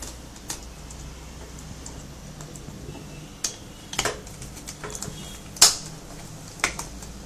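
A handful of scattered sharp plastic clicks and snaps as a thin pointed tool pries at the snap-fit cover panel above a Lenovo G430 laptop's keyboard, the loudest a little over five seconds in.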